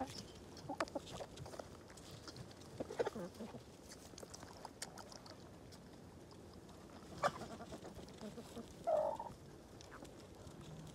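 Backyard hens clucking softly while drinking from a water bowl, with scattered light taps; one louder short call about nine seconds in.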